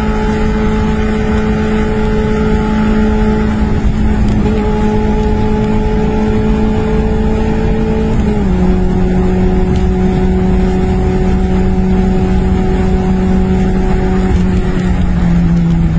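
Car engine droning steadily at highway speed, heard from inside the cabin over tyre and road rumble. Its pitch steps down about halfway through and eases lower again near the end.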